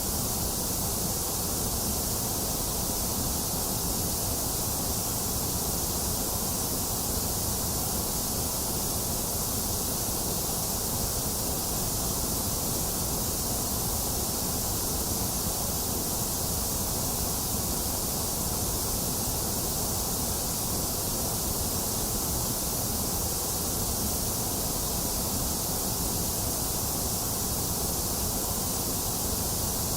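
Steady generated white noise: an even, unchanging hiss and rush, fuller in the lows and the highs and thinner in the upper middle.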